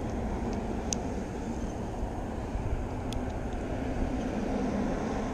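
Steady rumble of road traffic with a faint continuous engine hum, and two brief sharp clicks about a second and about three seconds in.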